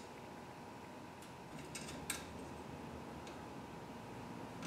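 A few small, faint metal clicks as a nut and washer are fitted by hand onto the bevel-lever bolt of a Bosch CM10GD miter saw; the sharpest click comes about two seconds in.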